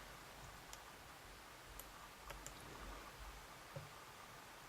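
A handful of faint, scattered ticks and clicks from a thin lock pick working the pin stacks of a Pfaffenhain pin-tumbler cylinder under tension, probing for binding pins, over near silence.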